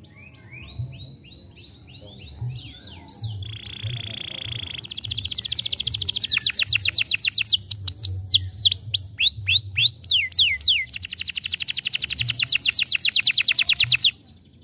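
Domestic canary singing: soft falling chirps, then a long, loud run of rapid trills with a few swooping notes in the middle, cutting off abruptly near the end.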